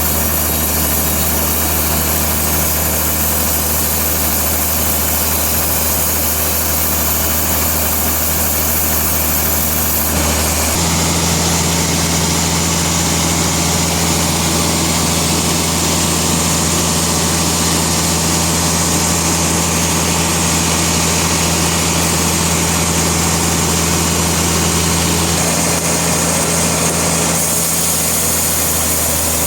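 Sawmill machinery running with a steady engine hum. The pitch shifts abruptly about 11 seconds in and again near the end.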